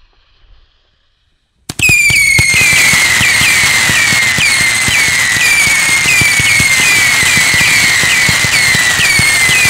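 Pyroland 'Hass' 100-shot, 18 mm firework battery: after a near-quiet start it erupts about two seconds in and fires loud rapid shots without a break. Each shot's screamer (whistler) gives a shrill whistle that drops in pitch, many overlapping.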